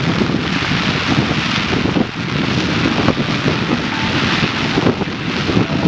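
A dense fireworks barrage: continuous rumbling booms with a thick crackle of many small bursts.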